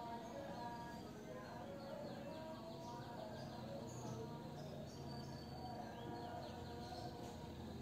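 Faint background ambience: short high bird chirps repeating over a low hum and an indistinct murmur.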